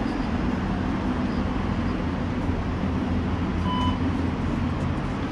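Steady low hum and rumble, with one short electronic beep from a metro fare-gate card reader about four seconds in as a card is presented.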